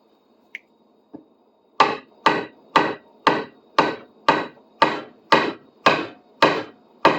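Hammer tapping lightly and evenly, about two strokes a second and eleven in all, starting about two seconds in. The taps drive the tapered square tang of an old drill bit into a wooden handle, just hard enough to mark the wood where it is to be cut.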